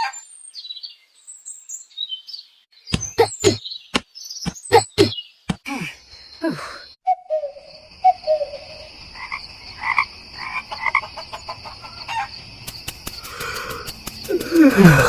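Animal calls, mostly frogs croaking: a run of sharp croaks and clicks, then scattered calls over a steady high insect-like tone from about halfway in.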